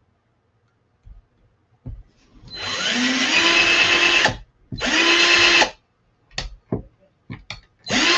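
Small cordless drill with a tiny bit drilling into a scrap-wood sign board: two bursts of drilling, each rising in pitch as the motor spins up, then a few light clicks, and a third burst starting near the end.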